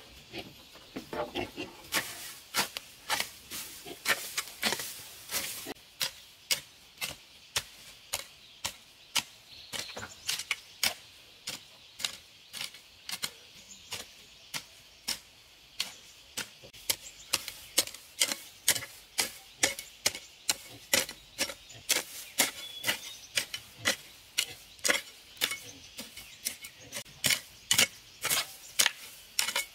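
Hoe blade chopping into dry, mulched garden soil in steady strokes, a sharp strike about twice a second.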